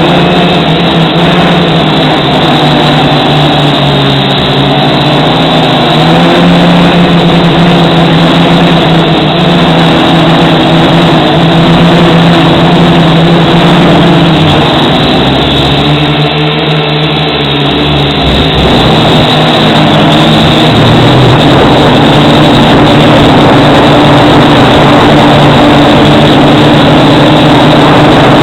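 Heavy wind noise on the microphone, with motors humming underneath, their pitch drifting up and down.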